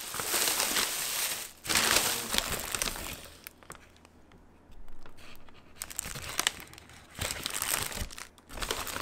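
Paper takeout bag and paper-wrapped burger rustling and crinkling as hands dig through the bag, in uneven spells with a quieter pause a little before halfway.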